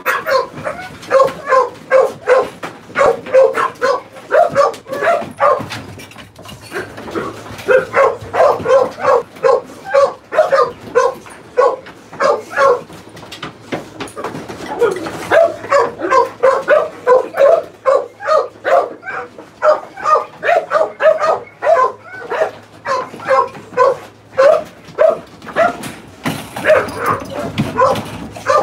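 Pit bull-type dogs barking rapidly and over and over, several barks a second, with a few short pauses.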